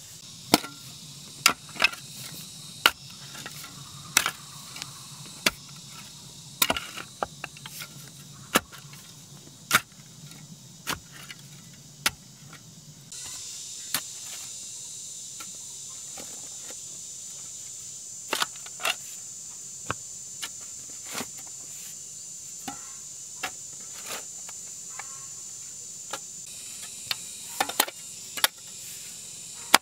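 Irregular sharp knocks, a second or so apart, over a steady high-pitched drone of insects.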